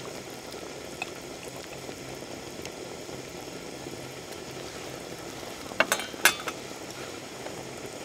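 Hot pot broth bubbling steadily in a clay pot over a portable gas burner. A couple of sharp clinks come about six seconds in.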